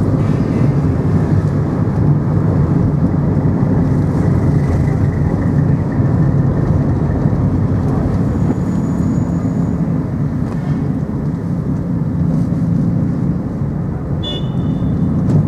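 Steady engine and road noise of a moving vehicle, with a low hum that eases slightly near the end.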